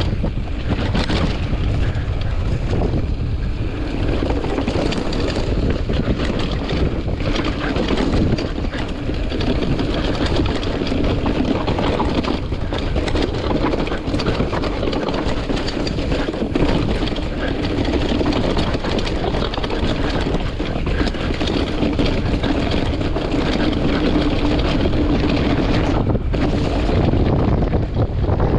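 Rockrider AM100 hardtail mountain bike ridden along a dirt singletrack: wind buffeting the microphone over the rumble of tyres on the trail, with a steady stream of rattles and knocks as the bike bounces over the bumps.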